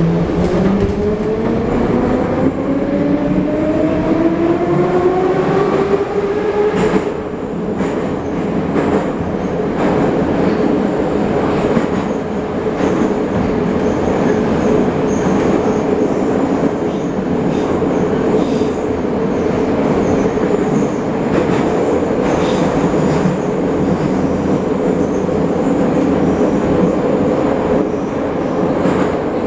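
The 81-717.5 metro car's traction motors and gearing whine, rising in pitch for the first seven seconds or so as the train gathers speed. The whine then holds a steady tone at running speed. Under it runs the loud rumble of the car, with the wheels clicking over the rails.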